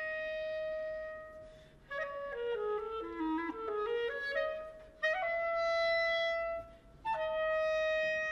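A clarinet playing alone. It holds a long note that fades away, then plays a quick run of notes that steps down and climbs back up. Two more held notes follow, each broken off by a short gap.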